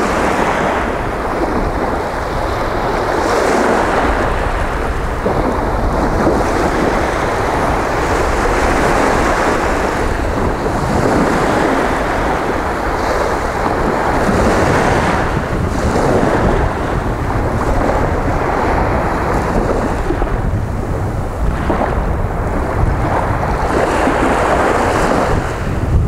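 Small sea waves breaking and washing up over a sandy beach, swelling and easing every few seconds, with wind rumbling on the microphone.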